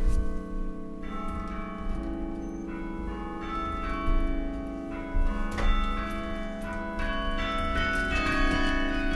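The bells of the National Carillon playing a slow passage: notes struck one after another, about one a second, each left ringing over the ones before.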